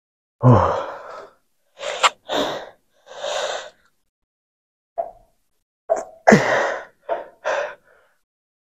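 A man grunting and breathing hard with effort while curling a heavy cable bar. There are two loud grunts, falling in pitch, about half a second and about six seconds in, and each is followed by several short, sharp breaths.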